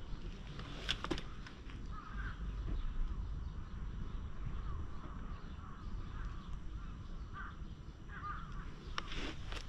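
Crows cawing now and then in the background over a steady low rumble, with a couple of sharp clicks about a second in.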